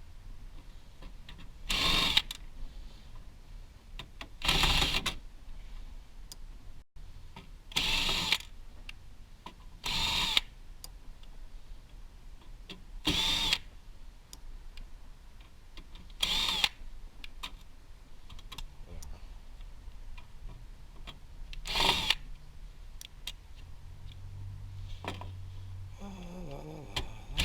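Cordless drill-driver run in seven short bursts, backing out screws while a server blade is taken apart for scrap.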